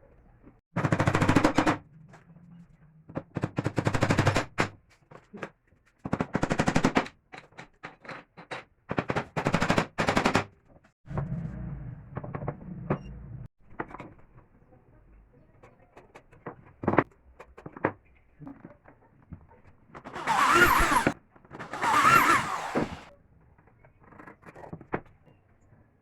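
A handheld power tool run in short bursts of about a second, each with a fast rattling chatter, about eight times. The two bursts near the end carry a wavering whine.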